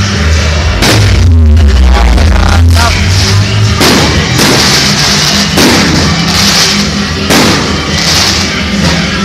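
Fireworks bursting in the sky, about six sharp bangs one to two seconds apart, over loud music with a steady bass.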